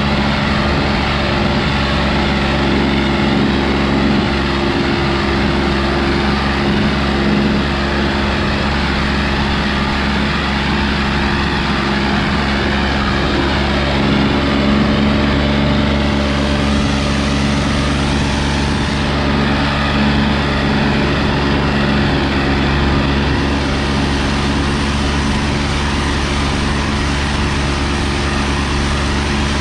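John Deere 5045 tractor engine running steadily under load, pulling a disc harrow in four-wheel drive.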